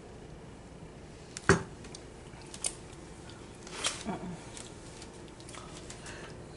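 Spatula and plate clicking and scraping as icing is spread over a cake: one sharp click about one and a half seconds in, a lighter click a second later, and a short scrape near four seconds in.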